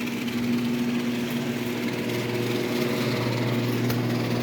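A small engine running steadily, growing louder over the first second or so and then holding.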